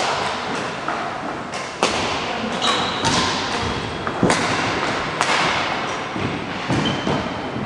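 Five sharp thuds at uneven intervals, each followed by a short echo, as in play in a large sports hall.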